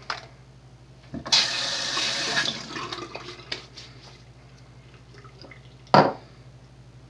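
Aerosol can of extra-creamy whipped cream spraying, a loud hissing, sputtering burst about a second in that lasts just over a second and trails off in a few small spurts. A single sharp knock near the end.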